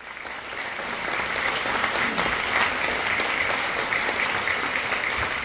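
Theatre audience applauding, a dense steady clapping that swells up over the first second.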